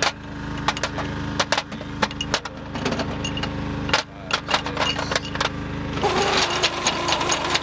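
Brass 20 mm cannon rounds clinking and clicking as they are handled and set into an ammunition loader's feed tray, over a steady machine hum. About six seconds in, it turns into a denser mechanical rattle.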